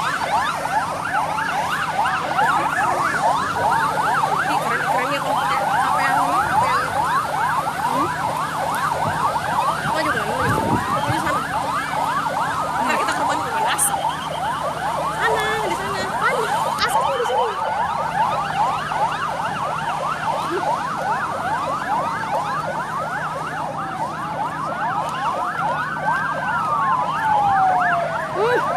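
Several emergency-vehicle sirens sounding at once, their rapid rising-and-falling yelps overlapping continuously, with a slower single wail sweeping down and back up near the end. A couple of brief sharp clicks cut through in the middle.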